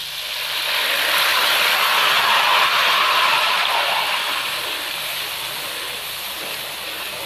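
Semolina-soaked milk poured into hot ghee and melted sugar in an aluminium karahi, sizzling loudly as the liquid hits the hot fat. The sizzle swells over the first two or three seconds, then eases off a little after about four seconds.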